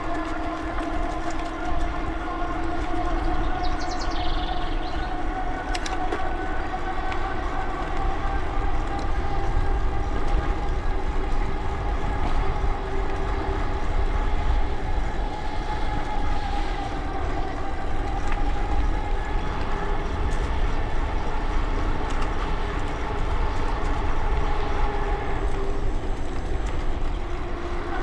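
Electric bike motor whining steadily at cruising speed, its pitch drifting slightly with speed, over wind rumble on the microphone. A short high chirp sounds about four seconds in.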